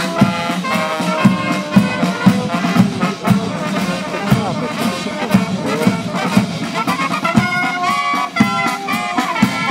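Military brass band playing a march: trumpets and trombones carry the tune over a steady bass drum beat, about two strikes a second.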